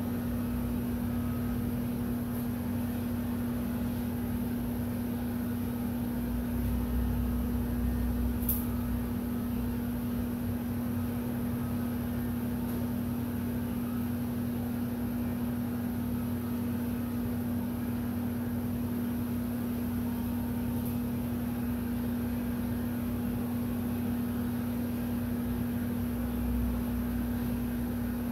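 Heat gun running steadily: a constant electric fan hum with one steady low tone and a thin hiss over it.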